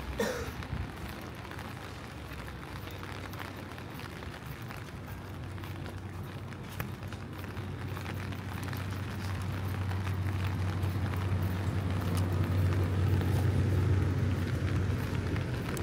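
Rain pattering on a city alley, a steady hiss of fine drops, with a low steady hum underneath that grows louder about two-thirds of the way through and eases off a little near the end.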